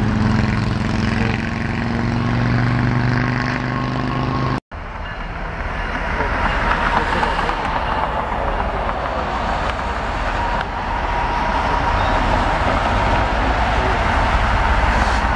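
Diesel locomotive running at low speed through a rail yard, a steady engine hum. The sound drops out briefly about four and a half seconds in, then returns as a broader rumble with a faint steady whine.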